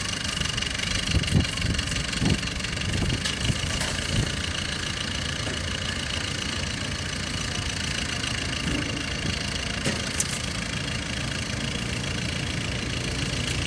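An engine idling steadily, with a few sharp knocks in the first four seconds and one more near the end.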